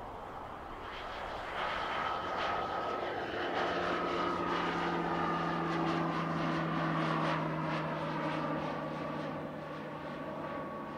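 An airplane's engines passing close by. The sound swells over the first couple of seconds and holds loud, with a steady whine and a low hum that both sink slowly in pitch, then eases off near the end.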